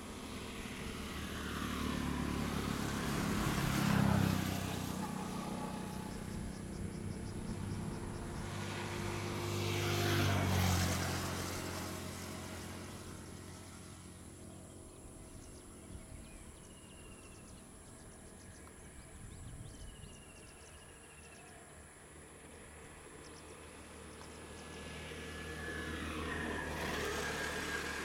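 Motor vehicles passing on a nearby road: three passes, each swelling and fading away, the loudest about four and ten seconds in and another near the end, with quieter outdoor background between them.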